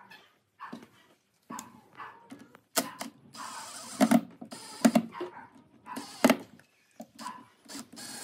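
Cordless drill driving small screws into a metal fitting on a wooden hive box, in short runs of under a second, with several sharp clicks and knocks in between.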